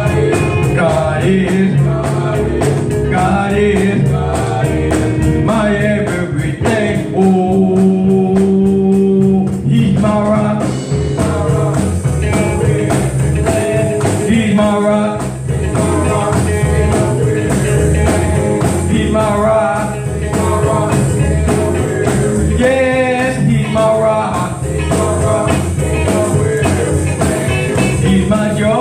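Gospel music with singing over a full band: drums, bass and keyboards keeping a steady beat.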